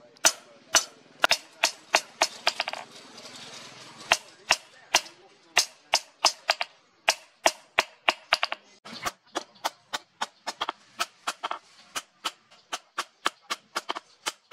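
Hand hammer striking a leaf-spring steel machete blade against a round steel anvil stake in a steady run of sharp metallic blows. The blows come about two a second, quickening to about three a second in the second half.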